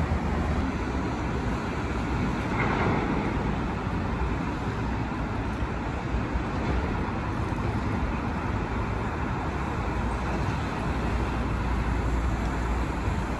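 Steady rumble of vehicle noise with a deep low hum underneath.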